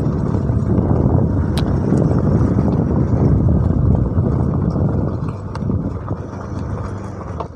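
Motorcycle running at low speed over a rough, bumpy gravel lane, its engine mixed with wind on the microphone and a few light knocks from the road. It gets quieter after about five seconds.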